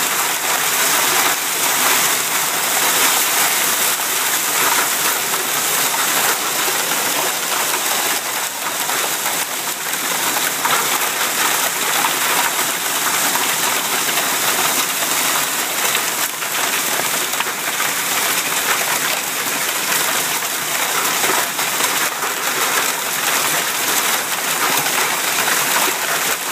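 Hail pelting down steadily in a heavy storm: a dense, unbroken patter of countless small impacts on surfaces.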